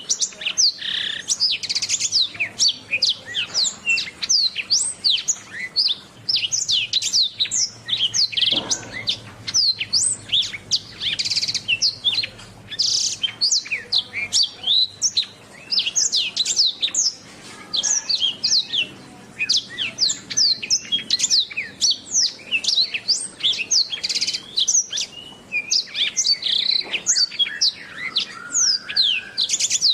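Domestic canary singing a continuous, rapid song of quick chirps and trills, many sweeping down in pitch.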